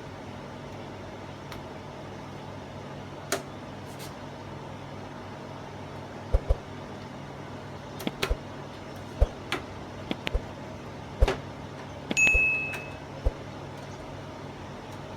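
Scattered sharp clicks and knocks of hand tools and plastic or metal parts being handled during TV disassembly, over a steady low hum, with a brief high-pitched tone near the end.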